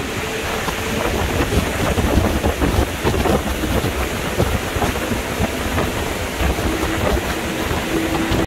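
Wind buffeting the microphone over the steady running of a fast tour boat's motor at speed on a river.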